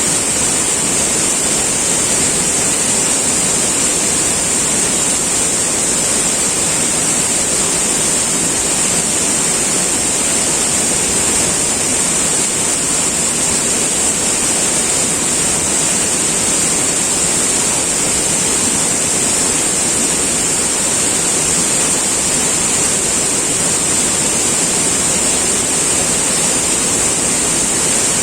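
River water flowing and rushing steadily, an unbroken wash of sound, with a steady high-pitched hiss laid over it.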